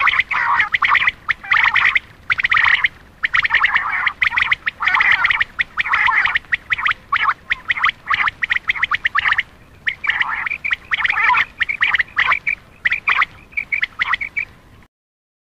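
Quail calling: rapid runs of sharp, chattering call notes repeated in clusters with short pauses, a recorded call played to lure male quail. It cuts off suddenly near the end.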